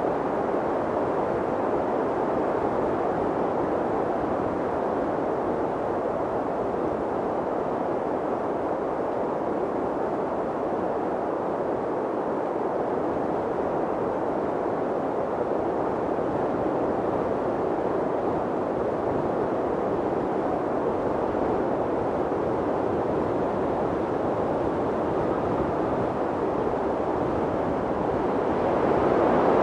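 Steady mountain wind, an even rushing noise with no gusts or breaks, swelling a little louder near the end.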